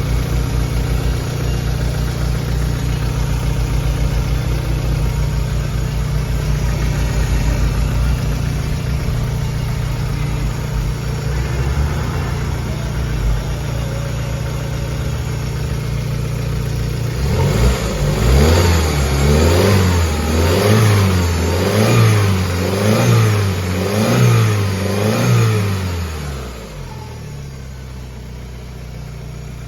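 Chevrolet Aveo engine idling steadily, then revved in a series of quick blips about one a second before dropping back to a quieter idle. The title says the engine is making a noise.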